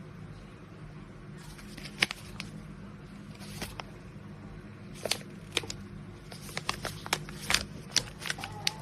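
Small plastic packaging being handled and opened: scattered sharp clicks and crinkles, getting busier in the last few seconds, over a steady low hum.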